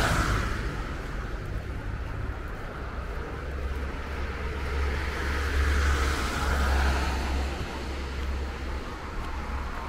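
Street traffic on a city road. One car's sound fades away just after the start, and another vehicle swells and passes about six to seven seconds in, over a steady low rumble.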